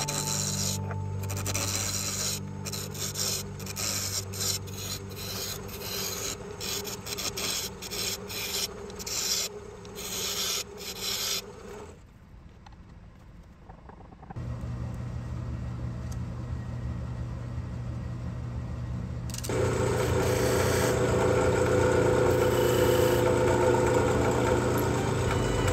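Skew chisel cutting a spinning wooden handle blank on a wood lathe: uneven rasping and scraping of the edge on the wood. About halfway through the cutting stops, and after a short quieter gap a steadier, louder running sound takes over.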